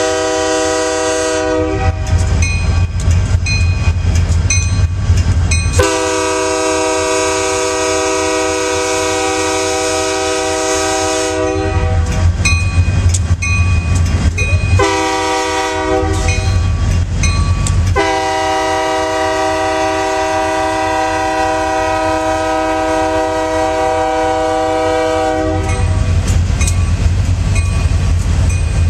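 Freight train's diesel locomotive horn sounding a multi-note chord: a blast ending about two seconds in, then a long, a short and a long blast, the pattern of the grade-crossing signal. Under and between the blasts the locomotives' diesel engines rumble and the wheels clatter, and near the end the covered hopper cars roll by with a clickety-clack.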